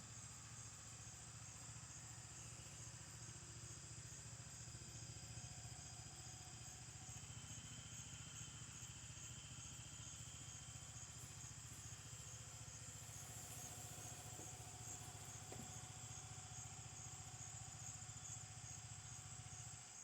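Faint, steady low drone of an engine running, which cuts off near the end, under a continuous high trilling of insects.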